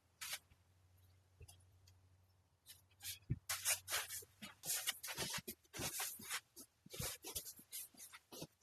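Nylon tent fabric rustling and scraping in irregular bursts as an inflatable tent is handled during setup. The bursts grow busier about three seconds in.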